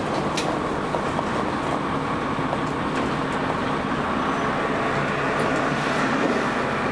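Dennis Arrow double-decker bus on the move, heard from on board: a steady mix of engine running and road noise.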